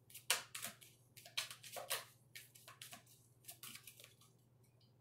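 A deck of reading cards being shuffled by hand: a faint, irregular run of soft card flicks and taps that thins out towards the end.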